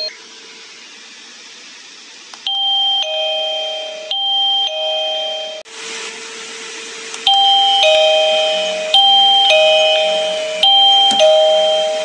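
EKEN V5 wireless video doorbell chime ringing a two-note high-low ding-dong after its button is pressed. Two pairs sound a little over two seconds in, then three more over a steady hiss from about six seconds.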